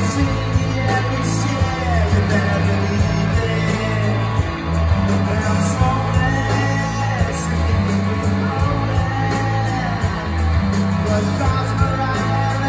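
Live rock band playing: electric guitars, heavy bass and drums under a singer's voice, heard from the audience in a small club.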